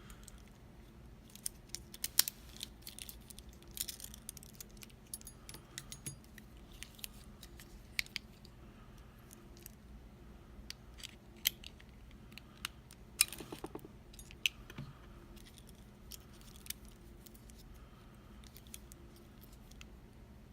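Small metal clicks, taps and scrapes of hand tools working a circlip off a pin-tumbler lock cylinder, scattered and irregular, with one sharper ringing clink about thirteen seconds in.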